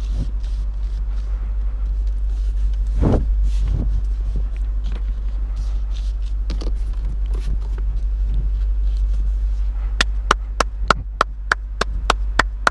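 Lexus LC 500 Convertible's V8 cruising at a steady speed with the top down: a steady low rumble of engine and road, with no revving. About ten seconds in, a quick even run of sharp taps starts, about three a second.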